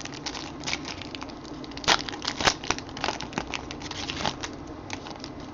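Trading cards and pack wrappers being handled: crinkling and rustling with irregular sharp clicks. The two loudest clicks come about two seconds in and half a second later.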